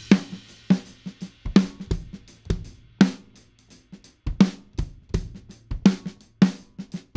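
Drum kit played in a steady groove, with prominent snare hits. The snare has a big low-end boost around 100 Hz from a Pulse Techniques Pultec EQM-1S3 tube equalizer.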